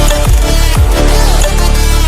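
Loud electronic dance music in a dubstep style, with a heavy bass line and repeated falling bass sweeps.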